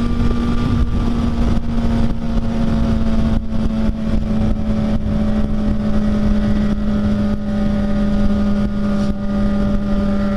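Sport motorcycle's engine running at a steady cruising speed, a constant drone, with wind rush over the rider-mounted microphone.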